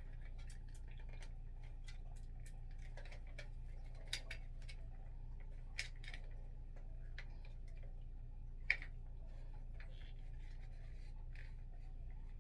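Scattered small plastic clicks and taps as a ring light smartphone mount is handled and extended, with three sharper clicks about four, six and nine seconds in, over a steady low hum.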